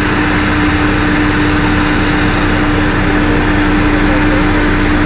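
Drilling rig machinery running steadily: a loud, even engine drone with a constant hum.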